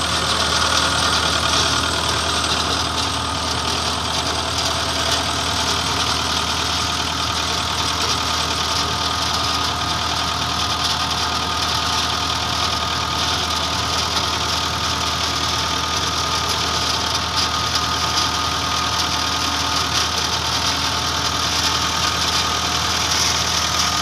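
Komatsu backhoe's diesel engine idling steadily.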